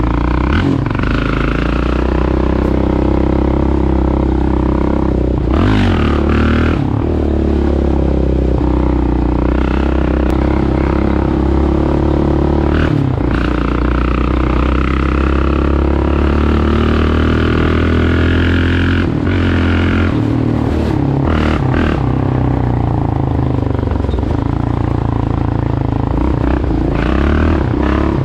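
Yamaha Raptor 700R ATV's single-cylinder four-stroke engine running under changing throttle, its pitch rising and falling, with a few short clatters along the way.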